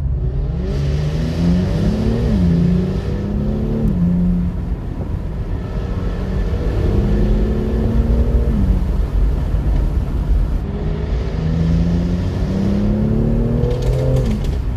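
Jaguar F-Type's supercharged V8 accelerating hard in three pulls: the engine note climbs, drops sharply about two seconds in and climbs again, then rises twice more further on, each climb falling away before the next.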